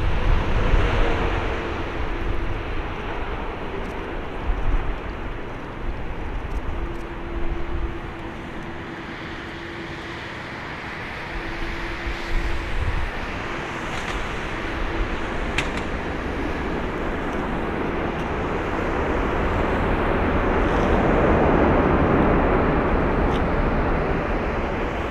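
Boeing 777-300ER's GE90 turbofan engines on landing: a jet whine with engine tones sinking a little in pitch through the flare and touchdown. On the rollout a broad roar swells as reverse thrust is applied, peaks near the end and begins to fade.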